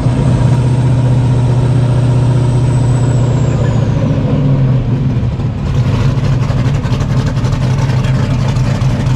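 Car engine running with a loud, steady deep exhaust note. A faint high whine falls away about three to four seconds in, and the sound turns rougher after about five and a half seconds.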